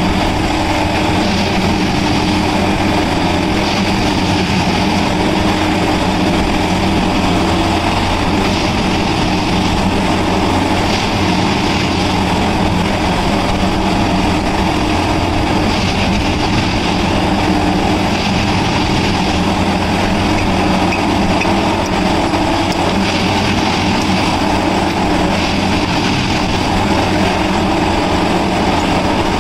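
Plasser Unimat 08-275-3S track-tamping machine working over the ballast: its diesel engine and hydraulics run with a steady, loud drone while the tamping units level the track and pack the ballast.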